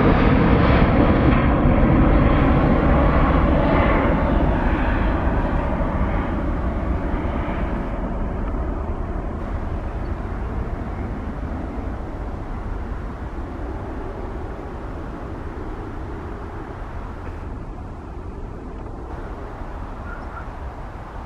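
Boeing 787-9 twin-engine jet airliner climbing away after takeoff, its engine rumble fading steadily as it flies off into the distance.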